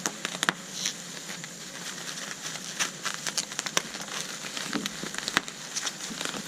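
Styrofoam packing peanuts rustling and crackling in a cardboard box as they are handled, with many irregular sharp clicks.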